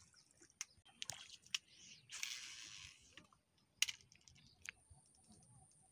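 Spinning fishing reel and rod in use: scattered light clicks, a hiss of about a second as a cast sends line off the spool, then a sharp click, the loudest sound, and a lighter one after it as the reel is worked.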